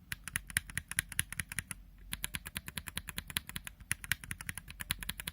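Tactile mechanical keyboard switches (Holy Panda and stock Zealio V2) in a brass plate, pressed rapidly over and over: a quick run of sharp clacks with two short pauses.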